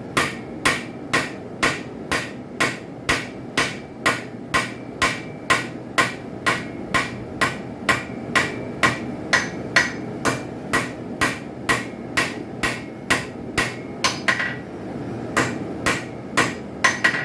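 Hand hammer striking a hot railroad spike on an anvil in a steady rhythm of about two blows a second, each blow with a short bright ring. There is a brief pause a little before the end, then a few more blows.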